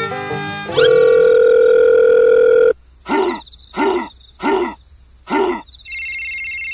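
Edited-in electronic sound effects: a loud steady beeping tone for about two seconds, then four short bleeps that each rise and fall in pitch, under a second apart, then a high warbling tone near the end.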